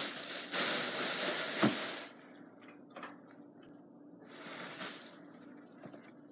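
Small blob of homemade glue slime stretched and squeezed between fingers, giving wet squishing and small sticky clicks. A loud rushing hiss fills about the first two seconds, ending with a thump, and a shorter hiss comes back later.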